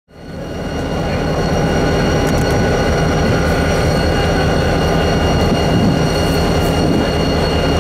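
Victorian Railways C class diesel-electric locomotive idling at a standstill: a steady, loud, low engine rumble with a thin, constant high-pitched whine above it. It fades in from silence over the first second.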